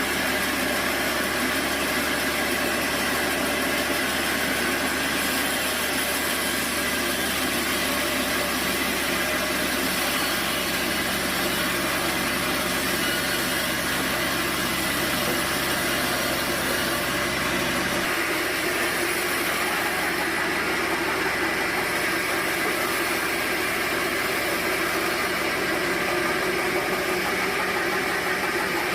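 Sawmill machinery running steadily, a dense even mechanical noise. A low hum underneath drops out about two-thirds of the way through.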